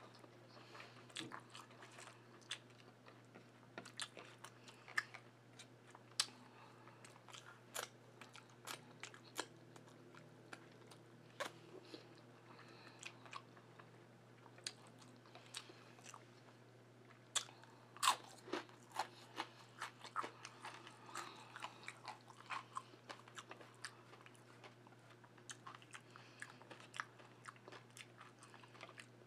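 Close-up chewing and crunching of dehydrated okra chips: irregular crisp crunches, clustered several a second at times, loudest about eighteen seconds in.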